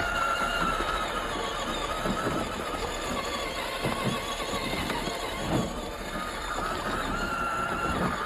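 Electric motor and geared drivetrain of a 1:10 scale RC crawler whining as it drives, the pitch wavering with the throttle and easing off briefly about two-thirds of the way through. Scattered knocks and crunches of the tyres and chassis over rough ground.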